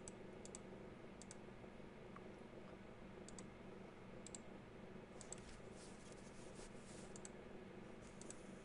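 Faint computer mouse clicks, about eight spread unevenly over several seconds, several as quick double clicks, over a low steady room hum.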